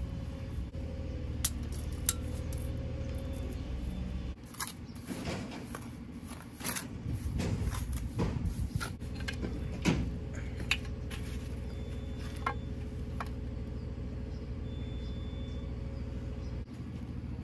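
A steady low engine drone that drops away for several seconds about four seconds in and comes back near the ten-second mark, with scattered sharp clinks and knocks of hard objects, loudest around two and ten seconds in.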